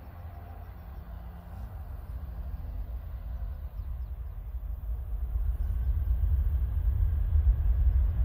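Low rumble of a jet aircraft growing steadily louder as it approaches.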